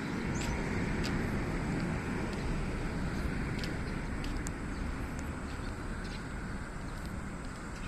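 A vehicle running: a steady rumble that slowly fades.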